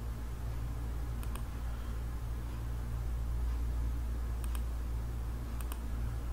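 Computer mouse clicking: short press-and-release clicks about a second in, and twice more near the end. They sound over a steady low hum.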